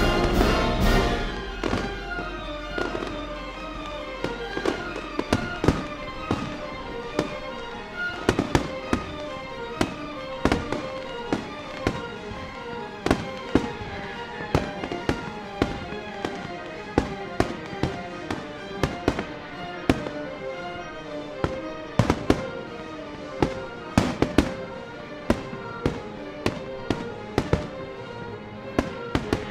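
Fireworks display going off in an irregular string of sharp bangs and crackles, over steady background music.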